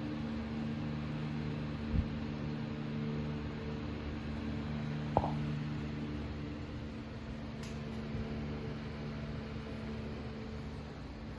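Antique General Electric 2 Star 12-inch table fan running with a steady motor hum and airy whoosh. Two sharp clicks come about two and five seconds in, and after the second the hum gradually softens.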